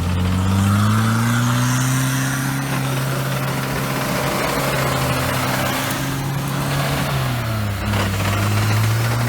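Off-road vehicle engine held at high revs under load. Its pitch climbs in the first second, holds steady, drops briefly about seven and a half seconds in, then rises again.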